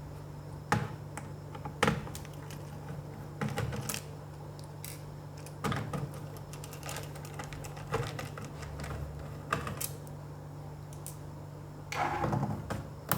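Irregular clicks, taps and light knocks of a Dell laptop's keyboard and case parts being handled while the laptop is taken apart, over a steady low hum. A louder cluster of knocks comes near the end.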